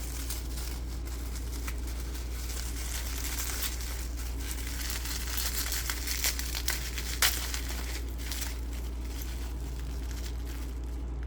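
Bubble wrap being unwrapped and crinkled by hand, a steady run of small crackles that grows busier past the middle, with one sharper snap about seven seconds in. A faint low hum sits underneath.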